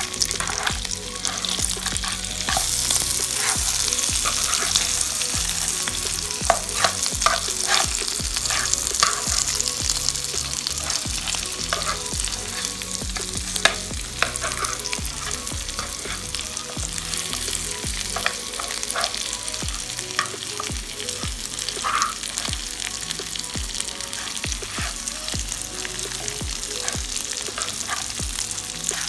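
Mutton chops sizzling steadily as they shallow-fry in oil in a nonstick pan. A metal spoon scrapes and taps against the pan again and again as the browned chops are turned over to fry the other side.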